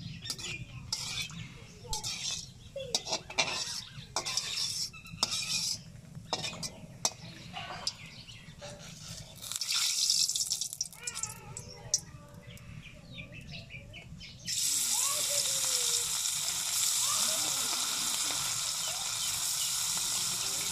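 Fish pieces slid into hot oil in a karahi, setting off a sudden, steady sizzle about two-thirds of the way through that keeps going to the end. Before that, the heating oil gives irregular light crackles and clicks.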